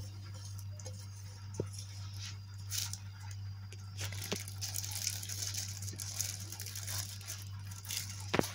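Chopped vegetables being tipped and scraped off a plate into a glass bowl: light clicks, clatters and rustles over a steady low electrical hum.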